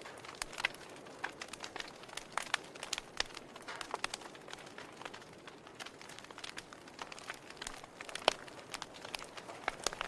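Wood fire crackling in a fireplace: irregular sharp pops and snaps of burning firewood over a soft hiss of flames, with one louder pop about eight seconds in.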